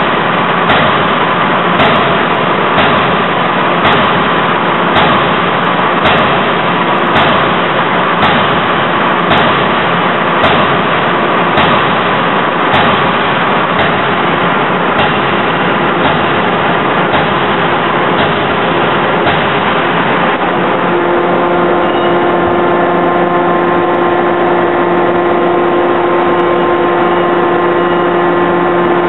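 Anyang C92K 200 kJ CNC hydraulic die forging hammer striking a hot workpiece, about one blow a second, over loud steady machine noise. The blows stop a little before halfway. Later a steady hum with clear tones rises out of the noise.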